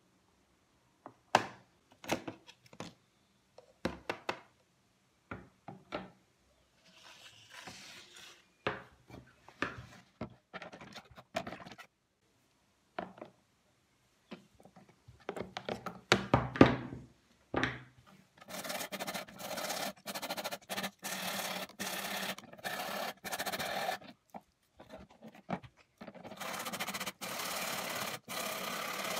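Rust being scraped and scrubbed off an old steel hand saw blade over a plastic tub of liquid: first scattered clicks, knocks and scrapes of a small knife on the blade, then, from a little past the middle, long runs of fast rhythmic scrubbing strokes, about three a second, of a brass wire brush on the blade.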